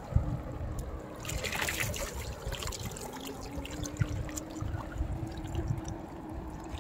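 Seawater pouring and dripping out of a mesh net bag as it is lifted from shallow water, loudest as a brief rush about a second and a half in, over a low rumble and a faint steady drone.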